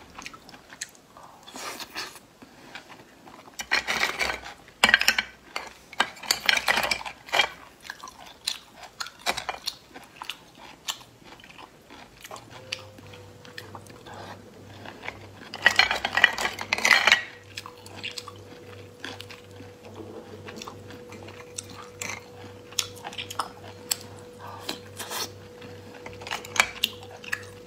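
Oyster shells clicking and scraping against each other and the plate as they are picked up, with close-up slurping and chewing as the oysters are eaten in louder bursts.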